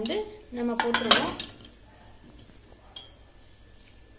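Whole taro corms tipped from a bowl into an empty stainless steel pressure cooker, tumbling and knocking against the steel in a short clatter about a second in. A single small knock follows near three seconds.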